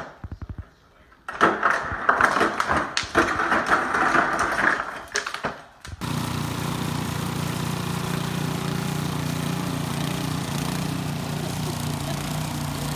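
A refrigerator's door dispenser clattering in irregular bursts as a dog paws at its lever. About six seconds in this cuts abruptly to a snowblower's small engine running steadily.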